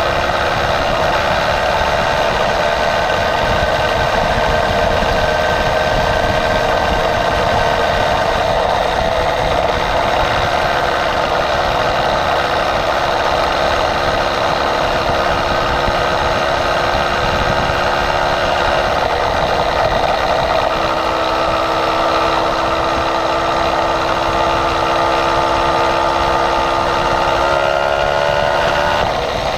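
Motorized bicycle's small engine running steadily at cruising speed, heard from the bike it is mounted on, with wind rush on the microphone. Near the end the engine's pitch rises as it revs up.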